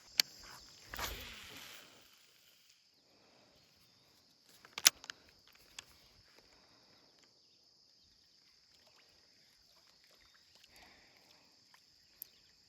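Quiet outdoor ambience with a faint steady high hiss, a short rustle about a second in, and a few scattered sharp clicks, the loudest about five seconds in.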